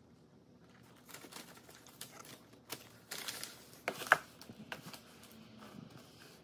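Crumpled kraft packing paper rustling and crinkling as hands push it around inside a cardboard shipping box, with a sharp knock about four seconds in as a perfume box is set down on a wooden table.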